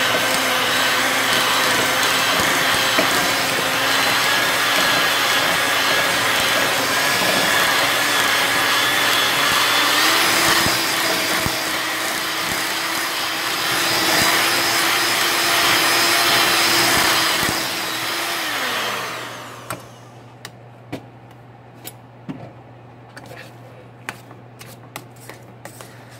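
Electric hand mixer running with its beaters in a saucepan of boiled potatoes, mashing them. Its motor pitch steps up about ten seconds in, then the mixer is switched off and winds down with a falling pitch at about nineteen seconds, after which there are only a few light clicks and taps.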